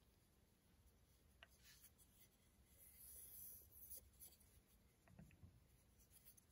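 Near silence, with faint scratchy rustling and a few small clicks as fingers handle and turn a turned red ash wand.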